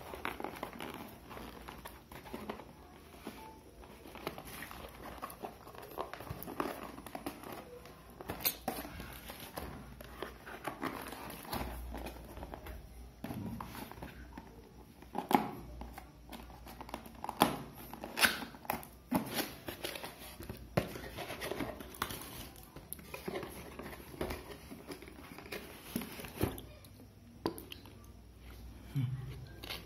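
Plastic bubble wrap crinkling and rustling as it is handled and pulled open, with irregular sharp crackles.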